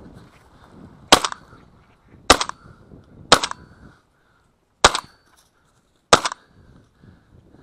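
Shotgun fired five times in quick succession, roughly a second apart, each a sharp crack with a short echo.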